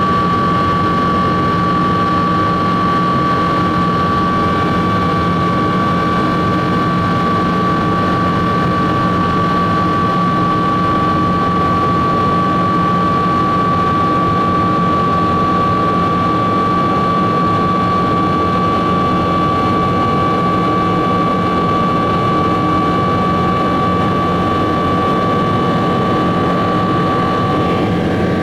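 Boeing 777-200 airliner heard from inside the cabin: a steady engine and airflow drone with a strong, constant high whine over it.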